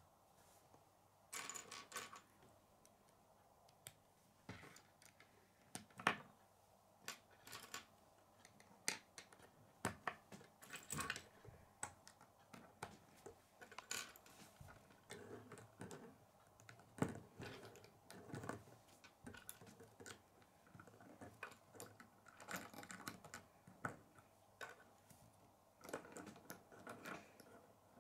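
K'nex plastic rods and connectors clicking as they are snapped together and knocked against a wooden tabletop: irregular sharp clicks in small clusters, with short pauses between.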